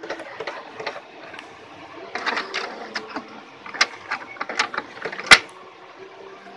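Irregular clicks and knocks of a power cable being handled and pulled out of an HP DeskJet GT 5810 inkjet printer, with one sharp, loud click about five seconds in.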